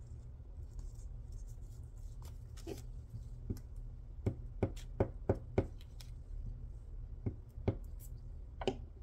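Hands handling paper and fabric scraps on a craft table, with a run of light clicks and taps, five in quick succession about halfway through, over a low steady hum.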